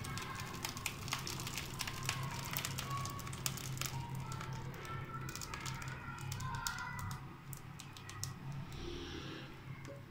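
Thick kheer (rice pudding) poured from a steel pot into a glass dish: soft wet plopping with many light clicks and scrapes of the pot and utensil, over a steady low hum.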